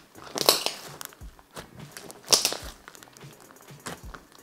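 White slime packed with Felix Party Mix dry cat-treat kibble, squeezed and pressed by hand. It crackles and crunches in irregular clicks and pops, with louder bursts about half a second in and again near two and a half seconds.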